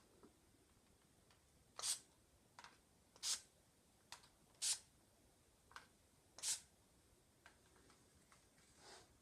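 ASMR trigger sounds: four short, crisp swishing strokes about a second and a half apart, with fainter clicks between them.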